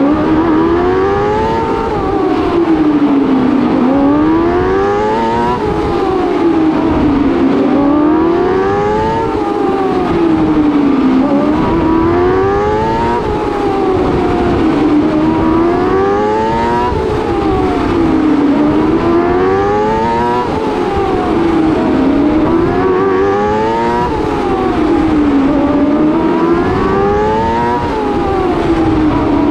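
TQ midget race car's engine heard from the cockpit, its pitch climbing as it accelerates on each straight and dropping as the driver lifts for each turn, about once every four seconds, lap after lap.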